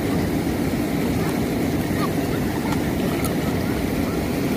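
Steady rush of churning lake water, an even noise with no break.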